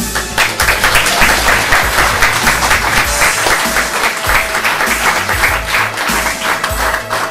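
Audience applauding: dense, steady clapping that starts suddenly.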